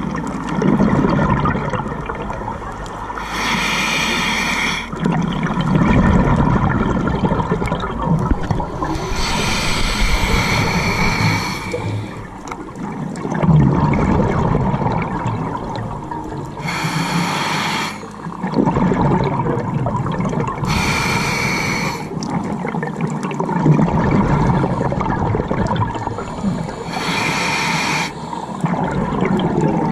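Scuba diver breathing through a regulator underwater: about five hissing inhalations, each a second or two long, with bubbling exhalations between them.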